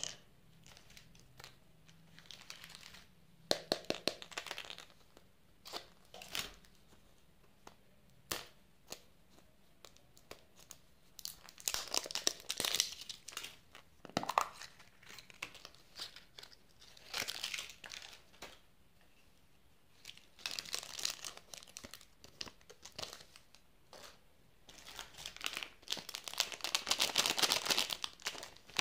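Hands crinkling and rustling plastic candy wrappers, with sharp clicks of plastic surprise-egg capsules being handled and pulled apart. The crinkling comes in short bursts and grows dense and continuous near the end as a packaged chocolate-cake wrapper is handled.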